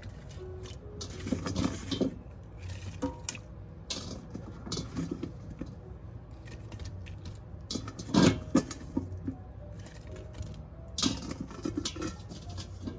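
Kitchen food-preparation sounds: scattered knocks, handling noises and liquid sounds over a low steady hum, with one louder knock about eight seconds in.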